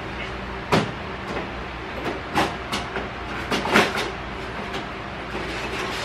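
Metal knocks, clicks and scrapes of a Dell PowerEdge R240 1U server being slid onto its rack rails and pushed home: about a dozen sharp knocks spread over several seconds, the loudest a little past halfway, over a steady low hum.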